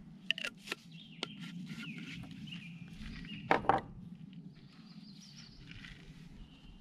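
Birds singing, with a few sharp knocks and clicks from things handled on a camp table; the loudest is a pair of knocks about three and a half seconds in. A steady low hum runs underneath.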